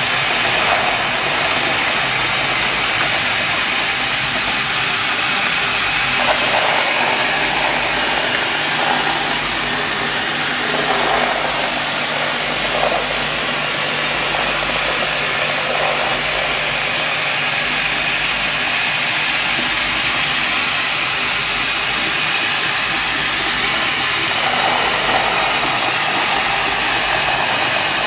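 Vibrating rivet-cleaning conveyor running steadily, a low hum under a continuous metallic rattle of steel blind rivets shaking across its perforated mesh tray.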